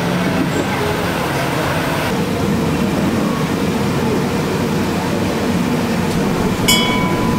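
Jalebi batter sizzling as it is piped in spirals into a wide kadai of hot oil, over a steady street rumble. Near the end a single sharp metallic clink rings briefly.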